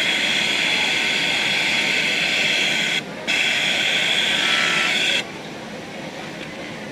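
Sewing machine running in stitching runs, a steady high-pitched whir that stops briefly about three seconds in, starts again and stops about five seconds in.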